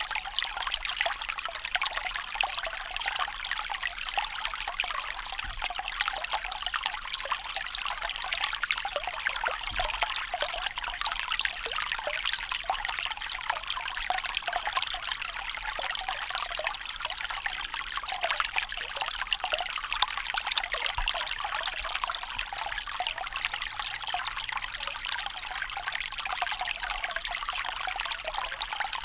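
Small stream rippling and trickling over stones, a steady bubbling babble of fast-moving shallow water.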